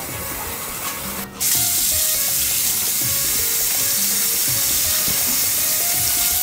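Bathroom tap running into a basin, a steady hiss of water that becomes louder and brighter about a second in.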